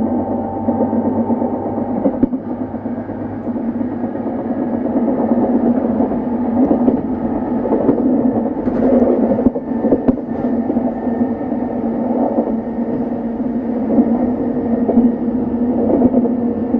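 Running sound of an E233-series electric train's motor car, MoHa E232-3619, at speed: a steady hum and whine from the traction motors over the rumble of wheels on the rails, with a few sharp clicks.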